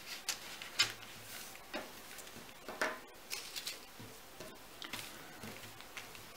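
Thin tracing paper rustling softly, with a few light taps and crinkles, as a hand smooths and shifts it over paper pattern sheets. The most noticeable rustles come about a second in and again near three seconds in.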